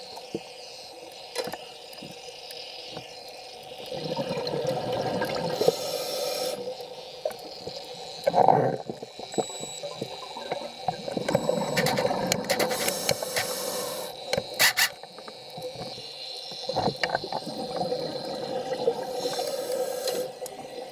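Scuba diver breathing on a regulator underwater: three bursts of exhaled bubbles, each two to three seconds long and several seconds apart, with sharp clicks and a short loud knock between them.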